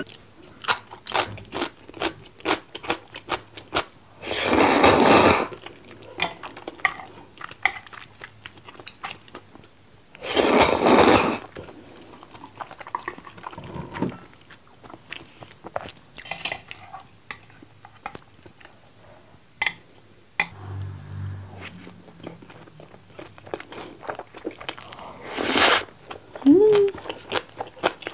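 Close-miked chewing and crisp crunching of food, including a slice of pickled yellow radish (danmuji), as a stream of sharp crunch clicks. Three louder rushes of noise, about a second each, stand out, and a short closed-mouth hum comes about two-thirds of the way in.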